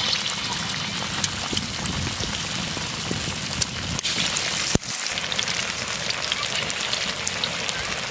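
Marinated, besan-coated chicken pieces frying in hot oil: a dense, steady sizzle and crackle, with a few sharper pops.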